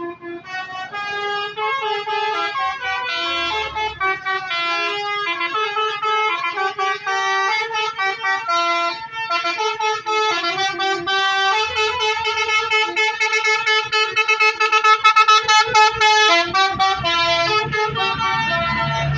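Basuri musical bus horn playing a tune, a steady run of stepped pitched notes changing several times a second.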